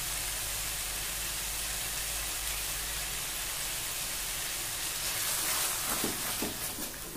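Vegetables and curd sizzling steadily in a hot frying pan. About five seconds in, a wooden spatula starts stirring, scraping through the vegetables in uneven strokes.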